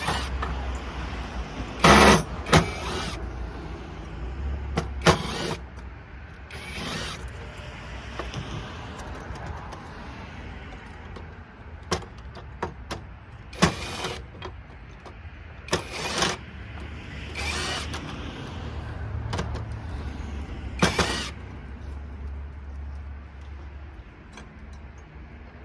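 Light sockets being taken apart by hand for their brass: irregular sharp snaps, clinks and short scrapes, about a dozen spread out over time, over a steady low hum.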